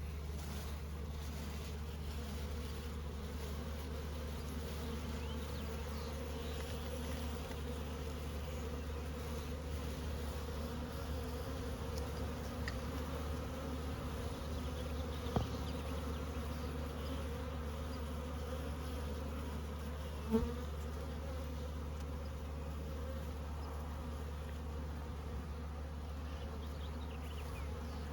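Honeybees buzzing around an open hive, a steady hum, with two short knocks partway through.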